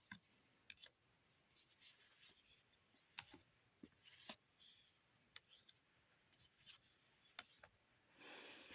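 Faint card handling: One Piece trading cards slid and flipped through one by one in gloved hands, giving soft irregular swishes and small clicks.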